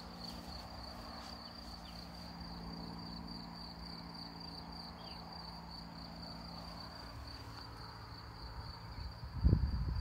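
Steady, high-pitched insect chirring runs through the background over a faint low hum. About a second before the end, a few loud, low thumps and rustles come close to the microphone.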